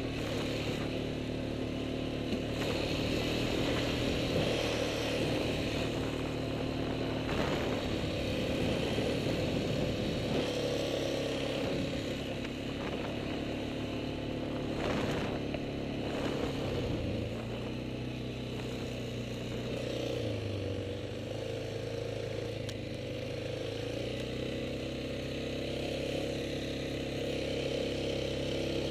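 Single-cylinder four-stroke ATV engine running while the quad is ridden, its pitch rising and falling with the throttle, with a few brief knocks along the way.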